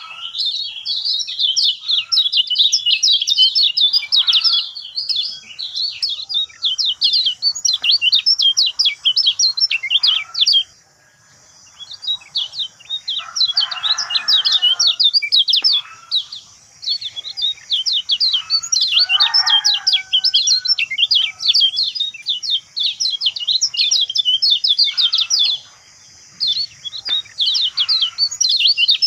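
Kecial kuning (a white-eye songbird) singing a long, rapid chirping song, a dense stream of quick high notes with brief breaks about eleven and twenty-six seconds in. This is the kind of loud, vigorous 'gacor' song used as a master recording to prompt other birds to sing.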